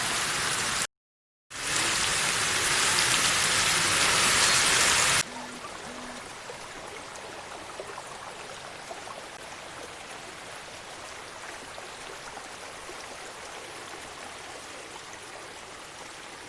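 Heavy rain falling, a steady rushing hiss. It cuts out for half a second about a second in, then comes back loud. About five seconds in it drops abruptly to a quieter, even patter that holds to the end.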